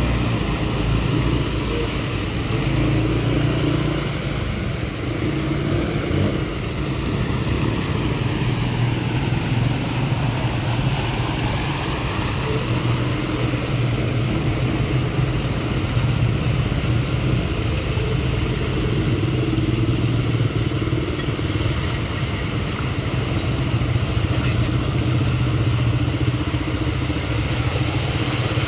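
Motorbikes and cars driving through a flooded road: small engines running steadily, with tyres splashing and sloshing through the water.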